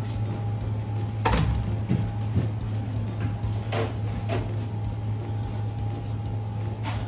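A long fish knife scraping and knocking on a plastic cutting board as fish fillets are skinned, about six short knocks and scrapes, the loudest about a second in. A steady low machine hum runs underneath.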